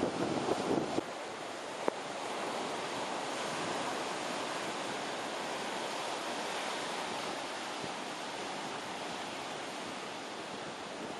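Steady wash of surf from the nearby beach, with wind buffeting the microphone in a gusty rumble during about the first second. A single short click comes about two seconds in.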